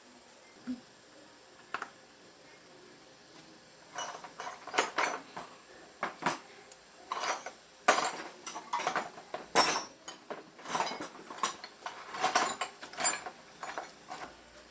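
Metal clinking and clattering, as tools or small metal parts are handled: irregular sharp strikes, starting about four seconds in after a mostly quiet start.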